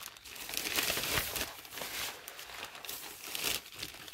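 Packaging bags crinkling and rustling as they are handled and pulled out of a shipping package, with irregular crackles.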